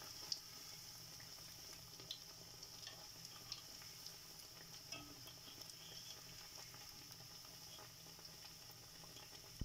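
Faint sizzle of onion fritters deep-frying in hot oil, with scattered small pops and light clicks as a wire spider strainer turns them and lifts one out.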